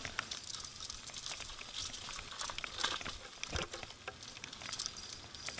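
Mountain bike rolling down a loose dirt and gravel trail: tyres crunching over stones and the bike rattling, heard as many irregular ticks over a low rumble.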